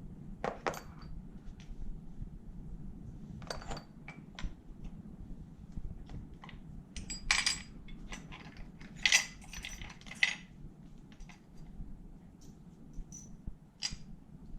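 Small metal engine parts and tools clinking and clattering as they are handled and set down: a few single clinks with a short ring, and a busier run of clatter in the middle, over a steady low hum.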